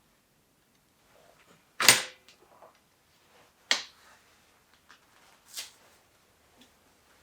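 Three sharp knocks about two seconds apart, the first the loudest with a short ring after it, with a few faint ticks between them.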